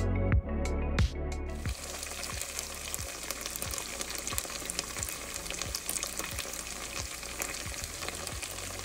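Background music with a beat for the first second or two, then fried rice and vegetables sizzling steadily in hot oil in a pan.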